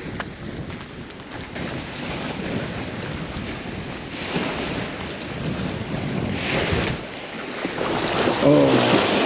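Choppy bay waves sloshing and washing against a pier railing's footing, surging louder every couple of seconds, with wind buffeting the microphone.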